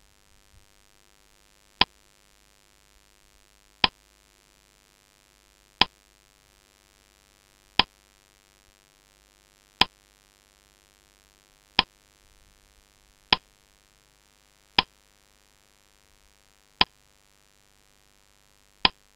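Ticking sound effect of a quiz countdown clock: a sharp, bright tick about every two seconds, ten in all, with near silence between.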